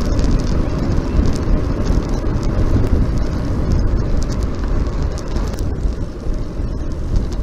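Wind and road noise on the microphone of a bicycle on the move: a steady, loud rumble.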